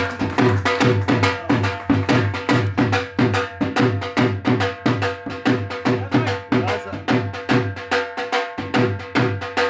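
Dhol drum played in a fast, steady rhythm: deep bass strokes about three a second interleaved with sharp, cracking high strokes, over a held steady melodic tone.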